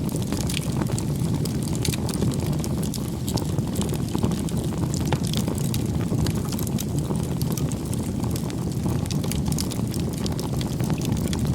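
Wood bonfire burning: a steady low rumble with frequent sharp crackles and pops throughout.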